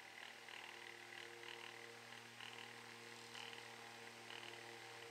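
Small clip-on electric fan running: a faint, steady hum.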